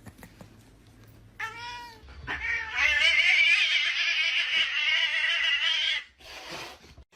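A cat calling: a short falling meow about a second and a half in, then a long, wavering yowl lasting several seconds that cuts off suddenly.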